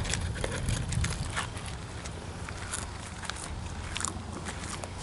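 Camera handling noise: many scattered clicks and rustles over a low rumble, a little louder in the first second.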